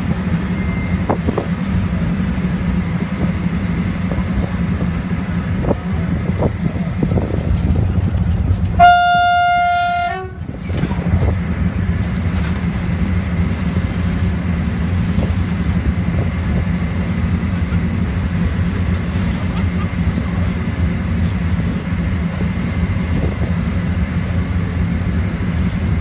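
Train horn sounding one single-note blast, about a second and a half long, some nine seconds in, over a steady low rumble.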